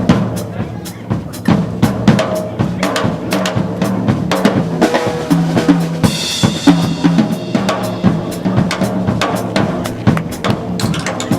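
Drum kit playing a busy solo of snare, rimshots and bass drum over a repeating low bass line, with a cymbal crash about six seconds in.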